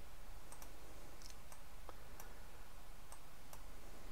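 Computer mouse clicking: a scattering of single, irregularly spaced clicks over a faint steady low hum.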